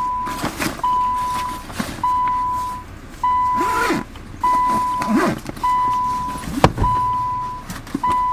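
A car's warning chime dinging steadily, one bell-like tone about every 1.2 seconds, each fading quickly. A sharp click sounds about two-thirds of the way through, with a couple of faint vocal sounds around the middle.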